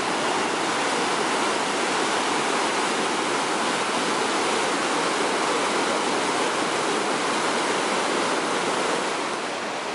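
Whitewater rapids of the Niagara River rushing and breaking over rocks: a loud, steady roar of water, a little quieter near the end.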